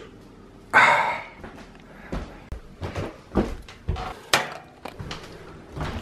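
A short, loud burst about a second in, then scattered knocks and clicks of things being handled and footsteps on a wooden floor.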